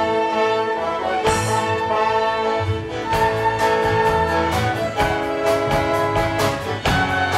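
Orchestra of strings and woodwinds playing: held chords at first, a bright crash just over a second in, then from about three seconds in a rhythmic passage of short, accented repeated strokes, about three a second.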